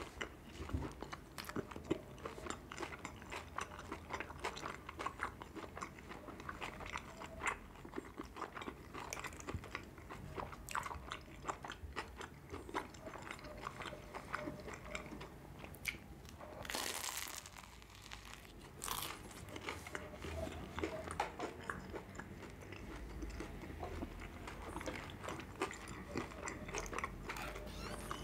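Close-up chewing and biting of a soft bread roll filled with chicken sausage and green pepper: a steady run of small wet, crunchy mouth clicks. A short hiss comes a little past halfway.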